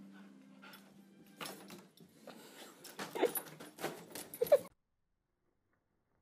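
A dog whining and yipping in short high squeaks while a foil balloon crinkles and rustles under its paws and mouth; the squeaks come thickest in the last couple of seconds before everything cuts off abruptly.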